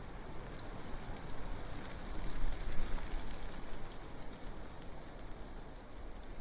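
Leaves rustling in gusting wind: a continuous crackling hiss over a low wind rumble, swelling about two and a half seconds in.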